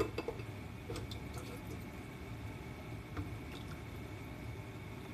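A few light clicks and knocks as a pot of broth is handled, with faint sloshing of the broth, over a steady low hum.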